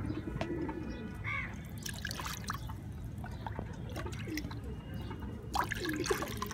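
Water with vitamin B complex mixed in being scooped from a plastic bucket and poured into a clay water pot, with dripping and splashing and a pour near the end.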